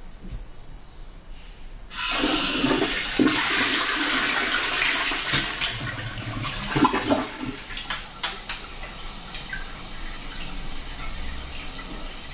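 Toilet flushing: a sudden rush of water starts about two seconds in, stays loud for several seconds, then eases to a steadier, quieter rush of running water.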